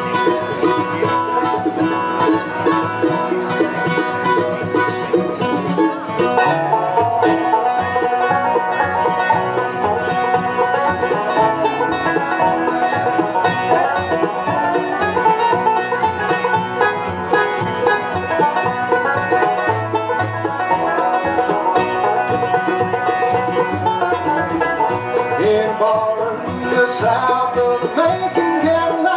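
Bluegrass band playing live through a stage PA: banjo, mandolin, upright bass and guitars in a lively instrumental passage with no vocals.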